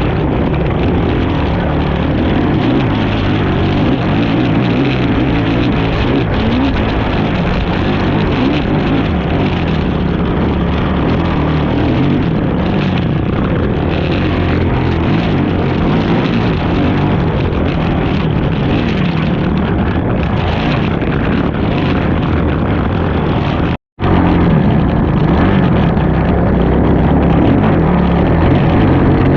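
Racing ATV engine running hard, steady and loud, with its pitch shifting as the throttle changes. The sound breaks off completely for a split second near the end, then carries on.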